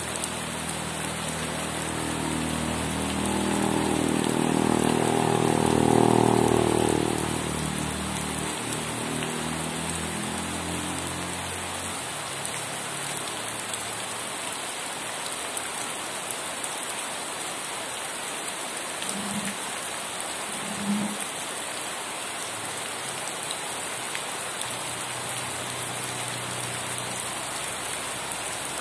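Steady heavy rain falling on surfaces. A low rumble swells in the first few seconds, is loudest about six seconds in, and fades away by about twelve seconds.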